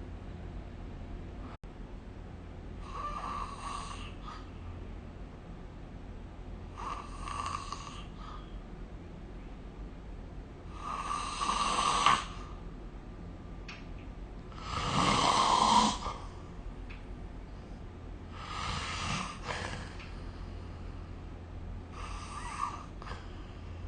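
A sleeping person snoring, one snore about every four seconds, with the two snores in the middle louder than the rest.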